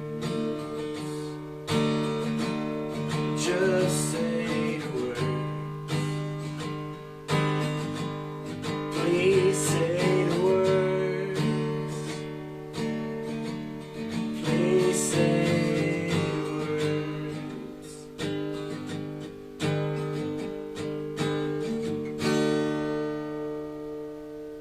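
Acoustic guitar strummed in slow chords, with a wavering melody line over them, closing on a final chord that rings out and fades away.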